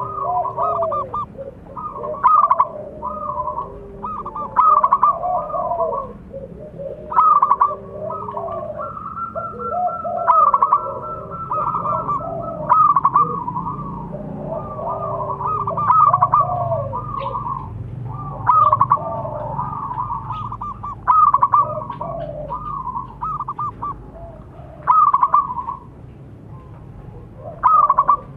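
Zebra doves cooing, with one bubbling phrase after another every two to three seconds and calls at higher and lower pitch overlapping.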